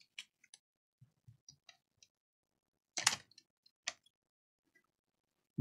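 A few faint scattered clicks, then two sharper clicks about three and four seconds in: small hard objects being handled or set down on a repair bench.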